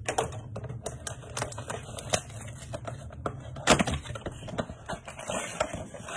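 A plastic-wrapped trading card pack and its cardboard box being handled: a run of small crackles and clicks from the cellophane and card, with one louder knock a little before four seconds in.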